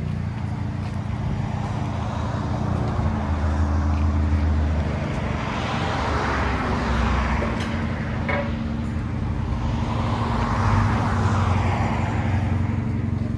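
2017 Honda Civic's exhaust running at low revs while the car reverses slowly. The muffler has been deleted, leaving the resonator and stock converter. A steady low drone swells gently about halfway through and again near the end under light throttle.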